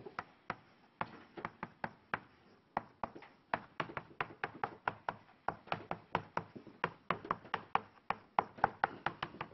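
Chalk tapping and clicking on a chalkboard while writing: a quick, uneven run of sharp taps, several a second, with a short pause about two seconds in.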